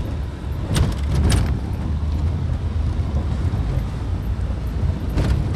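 Van driving slowly, heard from inside the cab: a steady low engine and road rumble, with a few brief knocks or rattles about a second in and again near the end.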